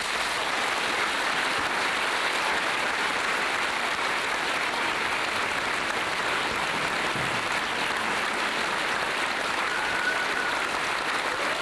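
Large audience applauding steadily, clapping and cheering after a farewell speech, with a few voices calling out near the end.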